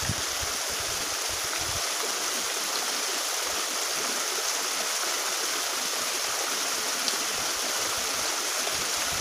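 Fast-flowing water in a small ditch, rushing and splashing steadily, fed by a small cascade.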